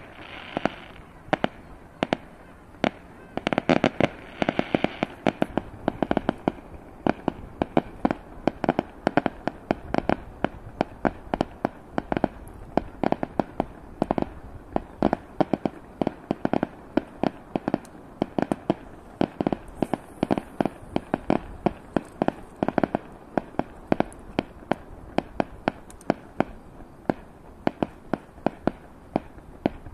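Fireworks going off in a rapid barrage: sharp bangs and pops several a second.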